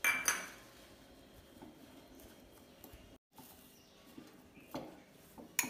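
A steel spoon knocking against a glass bowl and scraping through a soft mashed-potato mixture: a sharp clink at the start, then softer knocks and a louder clink near the end. The sound cuts out completely for a moment in the middle.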